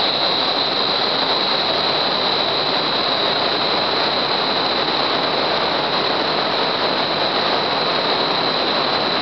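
Large wind-tunnel fan running at a steady speed: a constant rush of moving air with a steady high whine over it.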